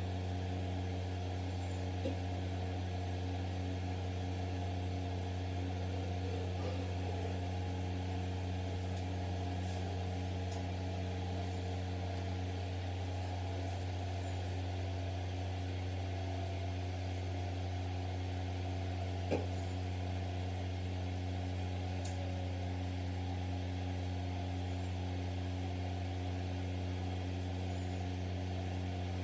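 A steady low mechanical hum that does not change, with a faint click about two seconds in and another near two-thirds of the way through.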